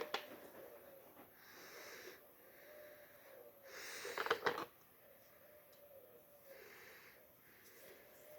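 Slow, wheezy breathing close to the microphone, about one breath every two seconds. There is a sharp click at the start, and a cluster of clicks with a short louder rustle about four seconds in.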